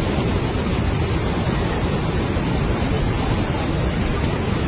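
Floodwater pouring through the arches of a stone weir, a loud, steady rush of water.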